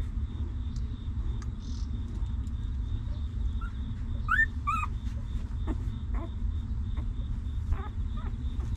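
Newborn puppies squeaking: two sharp, high squeals rising in pitch about four seconds in, then a few fainter squeaks, over a steady low rumble.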